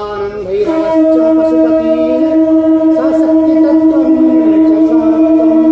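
Conch shell (shankha) blown for a temple arati: after a brief higher note it settles, about a second in, into one long steady held note. Faint chanting voices sound beneath it.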